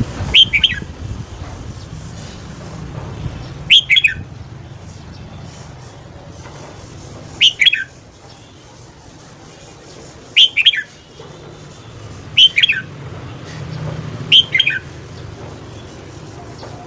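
Red-whiskered bulbul giving six short, loud calls, each two or three quick notes falling in pitch, spaced two to four seconds apart, over a faint low background hum.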